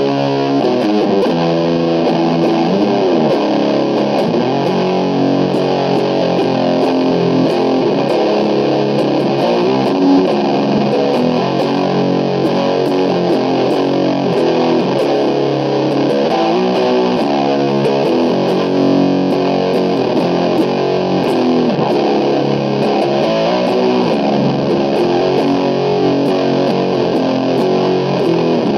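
Heavily distorted SG-style electric guitar played through an Orange amplifier, a continuous doom-metal riff of chords and ringing notes.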